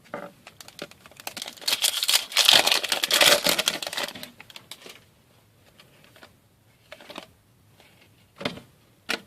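A foil trading-card pack being torn open and its wrapper crinkled, a dense crackling run for about three seconds, followed by a few soft clicks of cards being handled.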